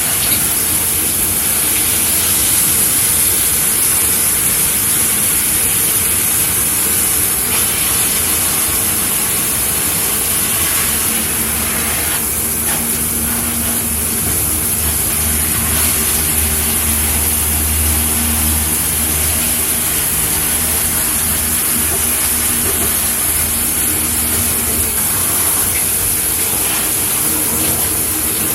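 Shower running steadily, water spraying with a constant hiss. A low steady hum joins underneath about a third of the way in and fades away again a few seconds before the end.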